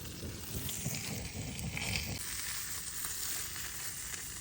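Campfire sizzling with a steady hiss and light crackle.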